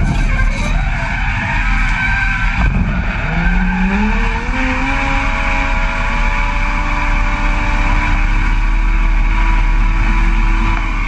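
Toyota 1JZ straight-six in a BMW E36 drift car under hard throttle: the revs dip near the start, climb steadily from about two and a half seconds in, and are held high and steady until they drop at the very end, over a constant hiss of sliding tyres.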